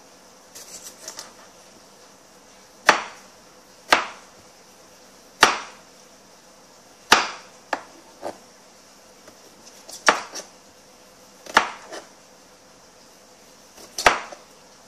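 Kitchen knife cutting tomatoes and knocking on a plastic cutting board: about seven sharp taps, irregularly spaced a second or two apart, with a few softer taps between.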